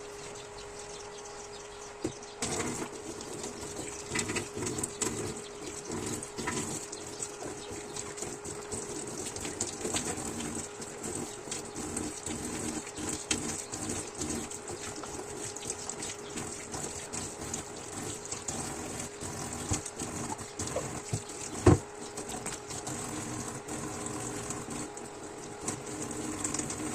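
Tap water running into a kitchen sink as dishes are washed by hand, with light clinks of dishes and one loud clack about three quarters of the way through. The water starts about two seconds in.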